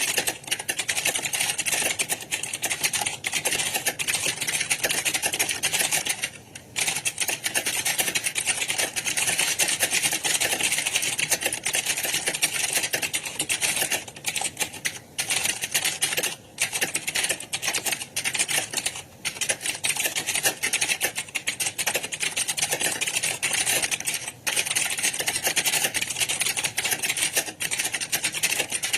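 Computer keyboard being typed on fast: a dense, continuous clatter of keystrokes, broken by a few short pauses.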